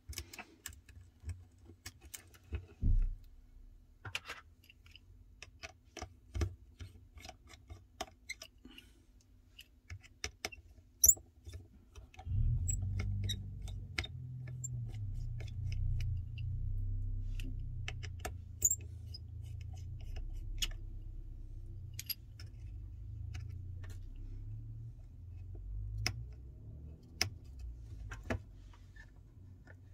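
Scattered small clicks and taps from a blue prying tool and fingertips working at an opened iPhone 11's internal connectors and frame while the battery connector is taken off. A low steady hum comes in about twelve seconds in.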